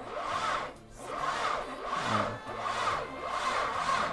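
R34 Nissan Skyline's engine being cranked over slowly by its starter without firing, with a rhythmic rasp about twice a second. The slow cranking is a sign that the starter is starved of current, which the owner puts down to battery wires too thin for cranking.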